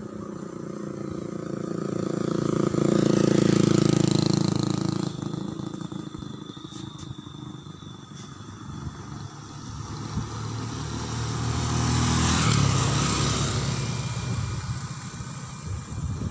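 Two motor vehicles passing by on the road one after the other, about nine seconds apart, each one's engine and tyre noise swelling as it approaches and fading as it goes by.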